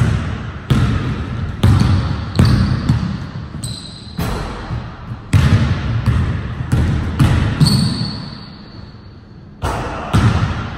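Basketball bouncing on a hardwood gym floor: about a dozen sharp bounces at an uneven pace, each ringing on in the echoing hall, with a quieter pause shortly before the end.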